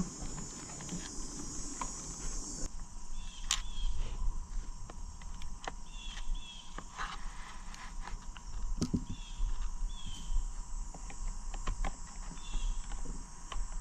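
Steady high insect chirring that cuts off suddenly about three seconds in. Then scattered light clicks and taps from the Ultrex foot-pedal parts being handled, with short high chirps between them.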